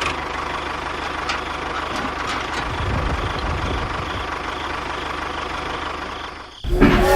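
A small engine or motor running steadily, a dense mechanical noise with a faint steady whine. It dips and cuts off about six and a half seconds in, and a louder, different sound takes over.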